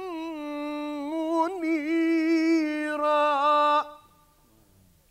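A man's voice in melodic Quran recitation (tajwid), drawing out one long held note with ornamental turns in pitch. It cuts off sharply about four seconds in, and near silence follows.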